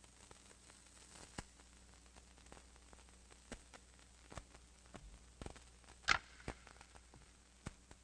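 Faint, scattered clicks and knocks at irregular intervals over a low steady hum, with one sharper click about six seconds in.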